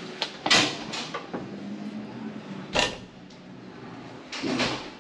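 Glass entry door with a metal push bar clunking as it is pushed open and swings: sharp knocks about half a second in and again near three seconds, the latch and bar clacking.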